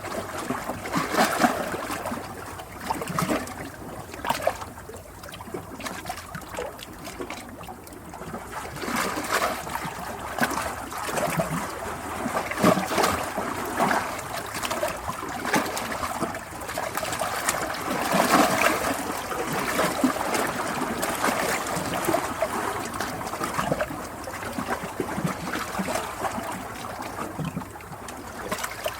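Running water trickling and splashing unevenly, like a small stream, with constant small surges and no steady rhythm.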